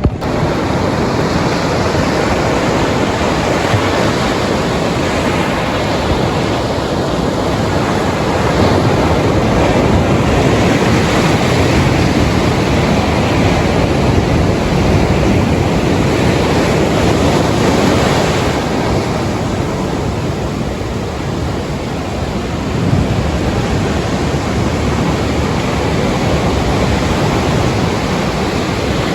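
Rough sea surf washing in steadily, loud and dense, with wind buffeting the microphone.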